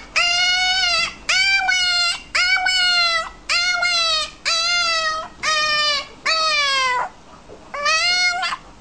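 A dog giving a run of eight high-pitched, drawn-out calls, about one a second, each dropping in pitch at its end, with a short break near the end.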